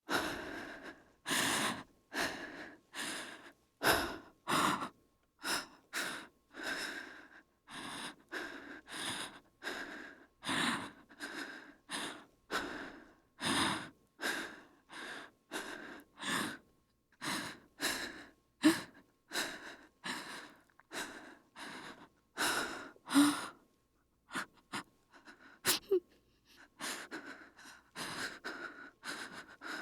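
A woman's scared breathing: quick, shaky breaths in and out, about two a second, with a few sharp gasps and a short pause about 24 seconds in.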